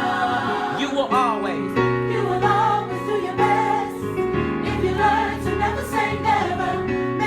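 Gospel choir singing over an accompaniment with a steady bass line, with a voice sweeping up and back down about a second in.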